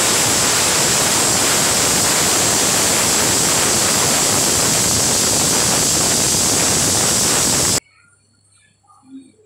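Pressure cooker whistle: the weighted valve on the lid is venting steam in a loud, steady, shrill hiss, which shows the cooker has come up to pressure. It cuts off suddenly near the end.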